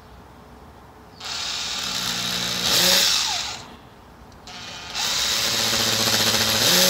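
Cordless drill with a masonry bit grinding into brick to pre-drill holes for wall plugs, in two runs: the first starts about a second in and stops after a couple of seconds, the second starts a little after four seconds and keeps going. The motor's whine climbs in pitch near the end of each run.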